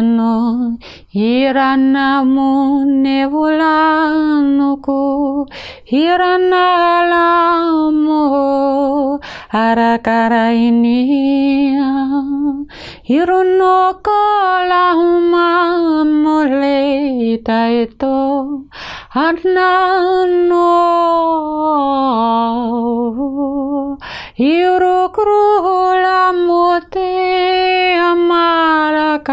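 A woman's voice singing wordless, unaccompanied notes, held long and gently wavering in phrases of a few seconds, each broken off by a short breath.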